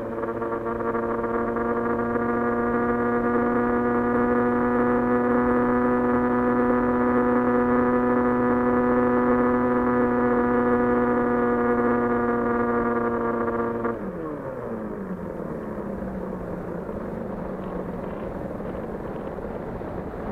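The S800 FPV plane's 2300KV brushless motor and propeller running at steady throttle, a droning whine that climbs slightly in the first couple of seconds. About 14 seconds in, the throttle is cut and the pitch falls away as the propeller winds down, leaving a rushing hiss of airflow.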